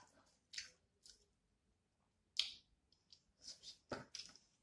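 Close-miked mouth sounds of chewing crispy-skinned rotisserie chicken: several short wet smacks and clicks, spread out with quiet gaps between them and coming a little closer together near the end.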